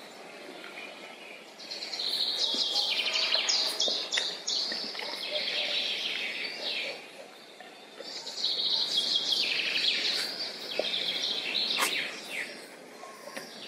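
Wild songbirds singing: two long, high, rapidly trilled song phrases of several seconds each, about two seconds in and again about eight seconds in, with quieter pauses between.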